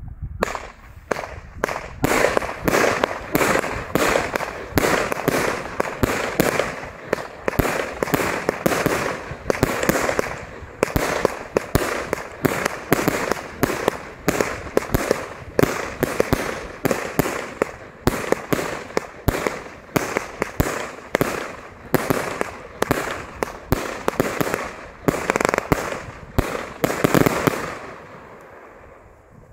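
Superior Fireworks 'Great Strobe' consumer cake firing its 49 shots from 25 mm tubes: a rapid string of sharp launch thumps and bursts, about two a second, over a continuous crackling from the strobing stars. It starts about half a second in and dies away about two seconds before the end.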